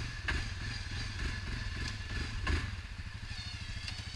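Quad (ATV) engine idling steadily, with a few sharp knocks and clunks as men shove and rock a stuck quad back up onto the trail.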